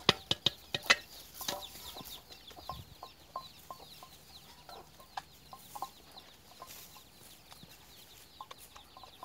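Birds chirping in a fast, steady stream of short high calls, with a cluster of sharp clicks and knocks in the first two seconds.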